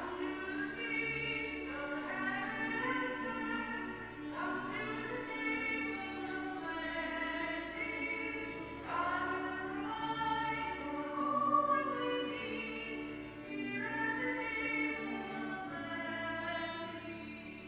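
Entrance hymn at Mass, sung with instrumental accompaniment: sung phrases over a steady held low note, fading near the end.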